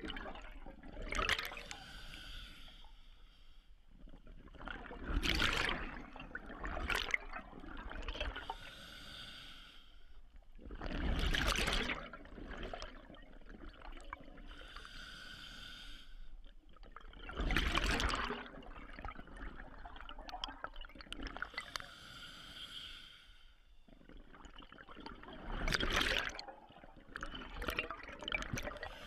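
Scuba diver breathing through a regulator: a hissing inhalation, then a loud rush and gurgle of exhaled bubbles, repeating about every six seconds.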